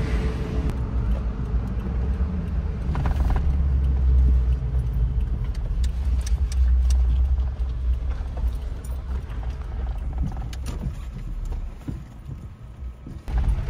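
Suzuki Jimny driving on a road, heard from inside the cabin: a steady low engine and road rumble with light rattles of loose things in the cab. The rumble drops away briefly near the end.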